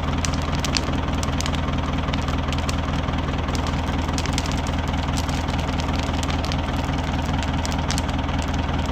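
Manitou telehandler's diesel engine idling steadily, with irregular sharp pops or ticks over the idle: the popping sound the owner is recording.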